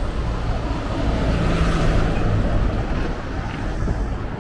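Street traffic: a steady low rumble of road vehicles, swelling about a second in as one passes close, then easing off.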